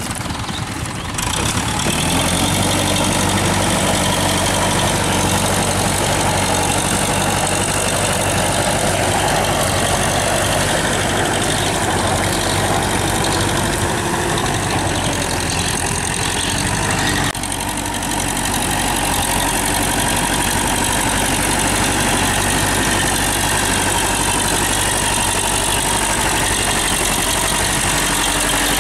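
Tafe 5900 DI tractor's diesel engine running steadily under load as it pulls a rotary tiller through flooded paddy mud. The level dips briefly about seventeen seconds in, then the engine goes on as before.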